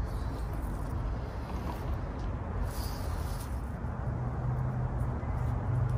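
Steady low background rumble, with a low steady hum joining about four seconds in, and a brief soft rustle of leaves being handled near the middle.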